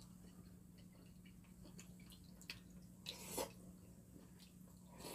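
Faint eating sounds from people eating a meal with chopsticks: soft wet mouth sounds and small clicks, with one brief louder wet sound about three seconds in, over a faint steady hum.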